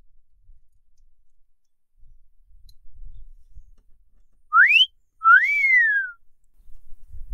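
A wolf whistle: a short whistle sweeping sharply up in pitch, then a longer one that rises and falls, about halfway through.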